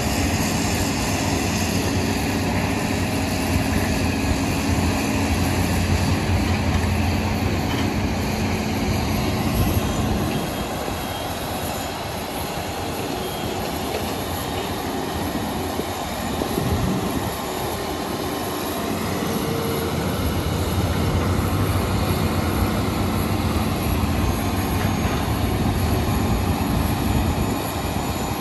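Heavy diesel construction machinery, chiefly a hydraulic excavator's engine, running steadily under working load. It eases off about ten seconds in and builds up again at about twenty seconds.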